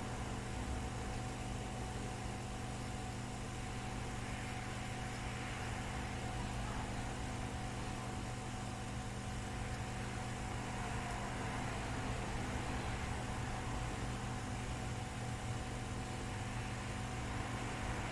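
Steady mechanical hum with a constant whine and an even hiss underneath, from running bench equipment.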